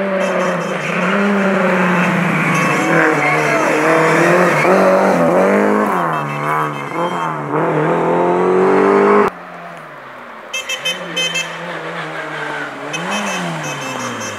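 Rally car engines revving hard, the pitch repeatedly rising and dropping through gear changes. About nine seconds in the sound cuts off suddenly to a quieter stretch, where another car's engine climbs and falls again near the end.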